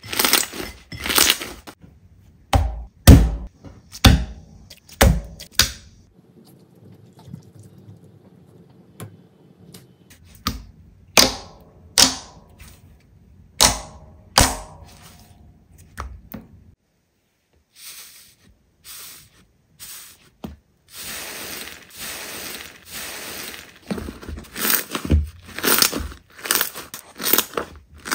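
Slime being pressed and squeezed by hand, giving runs of sharp pops and crackles, about one or two a second, broken by short pauses. A denser crackling stretch comes near the end.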